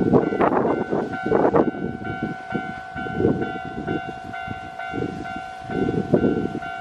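Japanese level-crossing alarm ringing steadily while a Keio Line electric train passes over the crossing, its wheels rumbling and knocking in uneven clusters that swell and fade.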